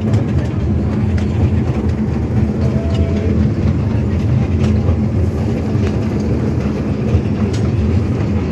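A small joy-ride train running along its track, heard from on board: a steady low rumble with occasional light clicks from the wheels.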